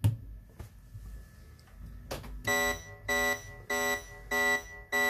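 A Eurorack modular synth playing a duophonic patch through a 2hp Dual VCA: about two and a half seconds in, a short note starts repeating at the same pitch, roughly one and a half a second. Each note joins an oscillator voice with the high steady whistle of a self-resonating filter. Just before it, a single click as a patch lead is plugged in.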